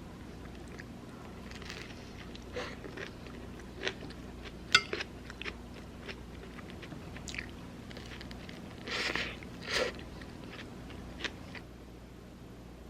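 A person eating: chewing and crunching food, with scattered sharp clicks and two short louder bursts of noise late on, over a faint steady hum.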